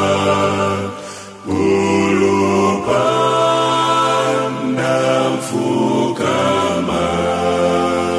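A choir singing a slow song in long held chords, with a short break about a second in.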